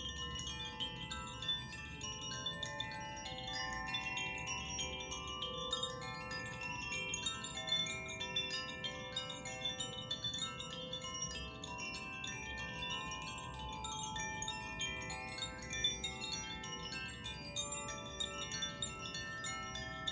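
Handheld tuned sound-healing chimes rung continuously, many clear overlapping tones sustaining and blending into one another without a pause.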